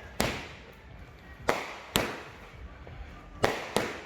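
Fireworks going off: five sharp bangs at uneven intervals, two of them in quick pairs, each trailing off in an echo.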